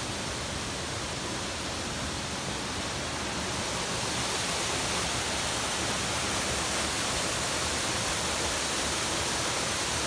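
Steady rush of water flowing over rocks in a river below a waterfall, a little louder from about four seconds in.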